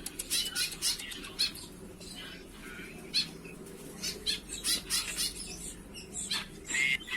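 Young sooty-headed bulbul fluttering its wings in short, irregular bouts.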